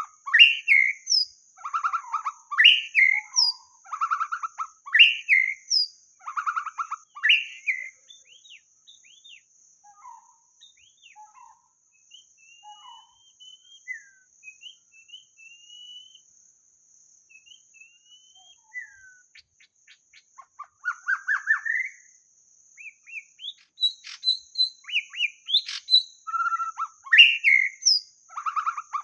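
White-rumped shama singing rich, varied whistled phrases, loud and close together at first. For about ten seconds in the middle there are only sparse, quieter notes, then the full song resumes. A steady faint high-pitched buzz runs underneath.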